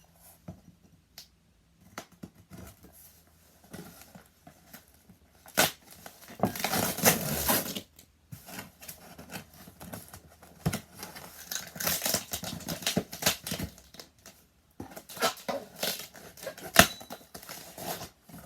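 A shipping package being opened: packing tape and cardboard slit with a knife and torn, with clicks, scrapes and rustling of packaging in several bursts.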